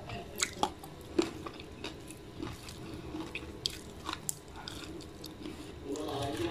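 Fingers mixing soft rice and coconut sambol on a plate, with scattered sharp crackles as pieces of fried papadam are pressed and broken, busier near the end.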